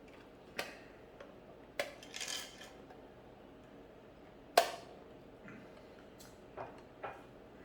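Small hard toy pieces being handled: scattered clicks and clinks of toy treasure coins and plastic tomb parts, about five sharp clicks with a short rattle about two seconds in, the loudest click a little past halfway.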